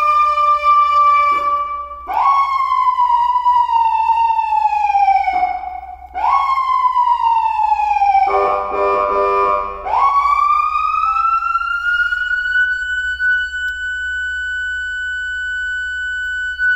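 Electronic police siren driven by a Feniex Typhoon siren controller, stepping through its tones: a falling tone ends, then twice a tone jumps up and glides slowly down, a harsher steady blast lasts nearly two seconds about eight seconds in, and a last tone rises and holds steady to the end.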